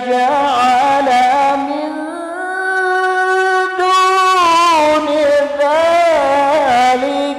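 A man's voice reciting the Quran in the melodic, ornamented tilawah style. He draws single syllables out into long melismatic phrases that waver up and down in pitch, with one long steady held note in the middle.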